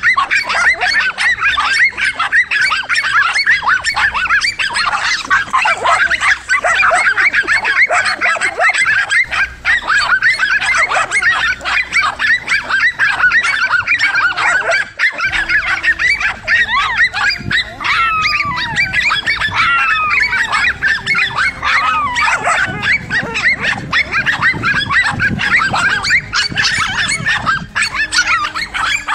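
Several dogs barking and yelping without pause, their calls overlapping, with a few drawn-out wavering whines past the middle.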